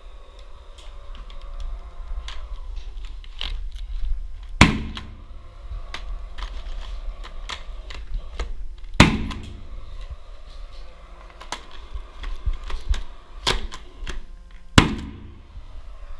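A ceiling sheet being worked into a wall-edge profile with a hand tool: a run of irregular clicks and taps, with three loud sharp knocks about four to six seconds apart, over a steady low hum.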